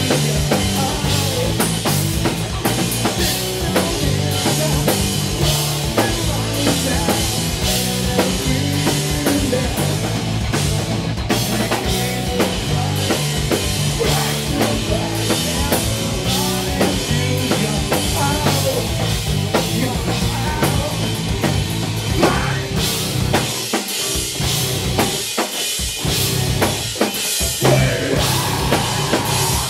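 Live rock band playing loud through a club PA, with distorted guitars, bass and a driving drum kit. For a few seconds near the end the bass and kick drum drop out, then the full band comes back in.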